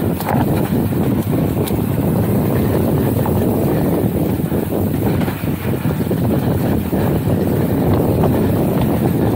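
Wind rushing over the microphone and mountain-bike tyres rolling on a sandy dirt trail, a steady dense noise, with scattered small clicks and rattles from the bike.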